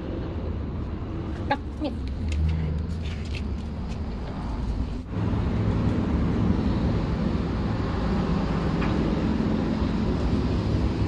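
Drive machinery of Edmonton's 100 Street Funicular as the glass car sets off up the incline: a few light clicks, then from about five seconds in a steady low hum.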